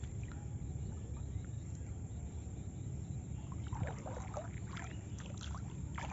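Faint small splashes and rustles from wading in shallow water while handling a nylon gill net, over a steady low rumble. The small sounds cluster in the second half.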